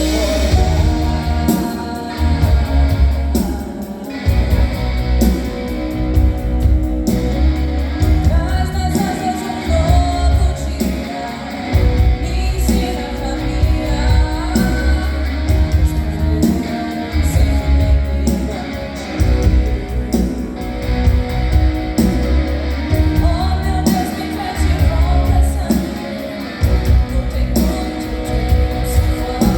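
Live student band playing a rock-pop song: a girl singing lead over drums with a steady beat, bass and guitar.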